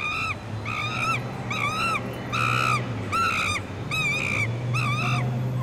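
A bird calling over and over in a crow-like caw: about eight calls, each rising and falling in pitch, over a steady low hum.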